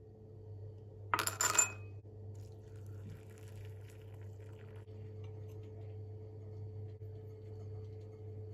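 A short rattle of sharp clinks on crockery about a second in, then hot water poured faintly into a ceramic bowl, over a steady low meditation-music drone.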